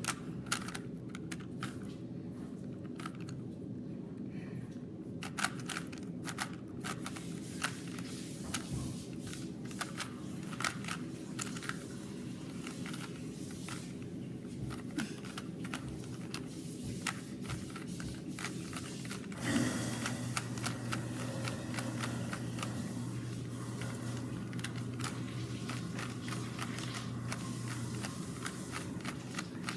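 3x3 Rubik's cube being turned quickly by hand during the last layer of a solve: a run of short plastic clicks and scrapes at an uneven pace. A steady low hum comes in about two-thirds of the way through and stops shortly before the end.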